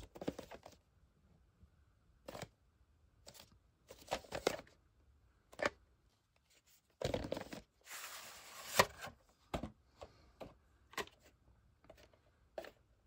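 A VHS tape and its sleeve being handled: scattered light clicks and rubbing of plastic and cardboard. A longer scraping slide about seven to nine seconds in, as the cassette slides against its sleeve, ends in a sharp plastic click.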